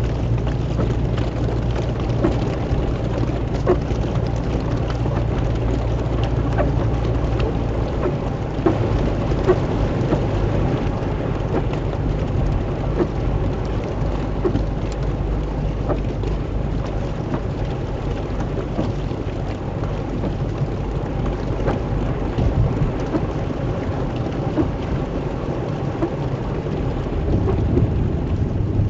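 Heavy rain falling, with many small drops ticking on a surface, over a steady low hum.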